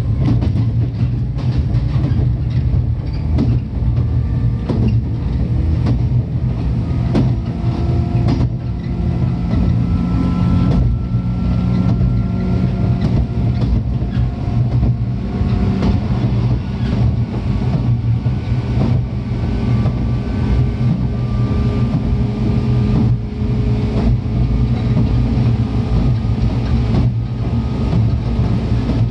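103 series electric train running, heard from inside the car: a steady rumble with a motor and gear whine that rises slowly in pitch, and the clack of the wheels over rail joints.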